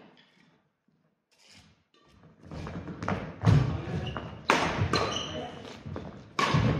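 Badminton rally on a wooden sports-hall floor: sharp racket hits on the shuttlecock and thudding footsteps, echoing in the hall. The hits start about two and a half seconds in after a near-silent start.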